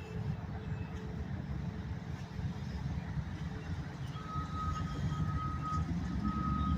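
Road traffic rumbling and growing louder, with a vehicle's back-up alarm beeping about once a second from about four seconds in.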